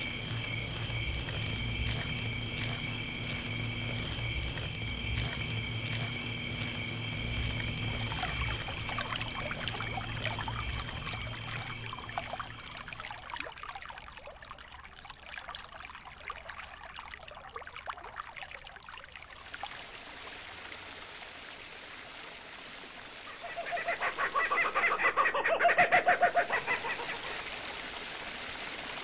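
Nature ambience: a steady high-pitched drone over a low hum for about the first twelve seconds, then trickling water, and a loud bird call of rapid pulses a few seconds before the end.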